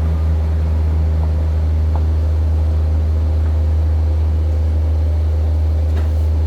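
An engine running steadily, a loud, even low drone with a few faint clicks over it.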